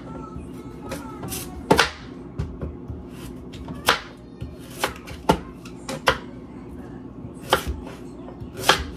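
Sharp knife knocks on a chopping board at irregular intervals, about seven of them, as green apples are cut into small pieces. Background music runs underneath.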